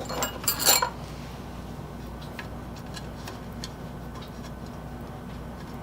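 Small metal parts clicking as they are handled: a few sharp clicks in the first second, then scattered light ticks, most likely the steel split bushing being fitted into the chainsaw's bolt hole. A steady shop hum runs underneath.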